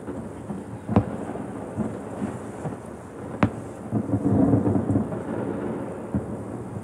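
Fireworks exploding: a sharp bang about a second in and another at about three and a half seconds, with a rumble of further bursts between about four and five seconds.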